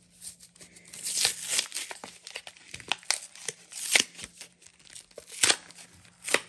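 Foil Pokémon booster pack wrapper being torn open and crinkled: a run of sharp rips and rustling that starts about a second in.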